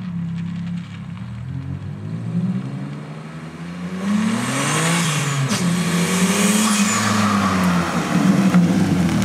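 Turbocharged 2.7-litre V6 of a 2006 Hyundai Tiburon revving under acceleration: the engine note climbs, drops sharply about five and a half seconds in, then rises and falls again. A rushing hiss joins in from about four seconds in.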